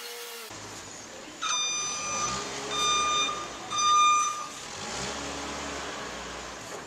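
A forklift's loud warning alarm beeps three times, each a long, high-pitched tone, the last the loudest. The forklift's engine runs with a low hum underneath.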